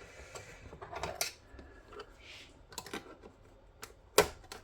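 Scattered clicks and knocks of tools and plastic and metal parts as a circuit board is worked loose from inside a dismantled TV, with the sharpest knock about four seconds in.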